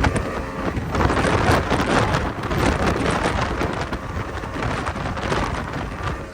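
A 22 ft Velocity race boat running fast through choppy water, with wind buffeting the microphone over the engine noise and repeated sharp slaps and splashes of spray and waves against the hull.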